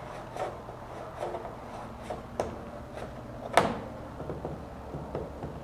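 Scattered light clicks and knocks of a wrench working a plastic threaded fitting, with one sharper click about three and a half seconds in, over a low steady hum.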